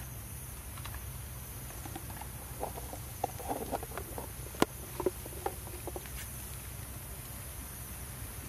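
Shrimp cooking in a foil-lined pan over a wood-burning camp stove: scattered small pops, crackles and clicks, busiest through the middle, with one sharp crack about halfway through, over a steady hiss.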